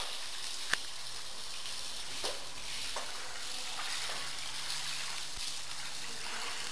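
Pressure washer water jet hissing steadily as it sprays across a soaked rug, with a few short clicks.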